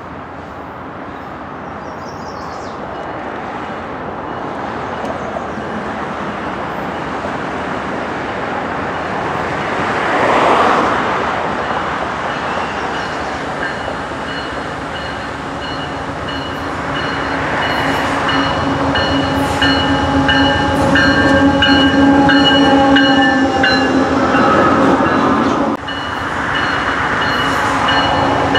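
Canadian Pacific freight train led by GE AC4400CW and ES44AC diesel locomotives approaching and getting steadily louder, with engine and wheel noise. From about halfway through a steady whine from the locomotives sits over the rumble.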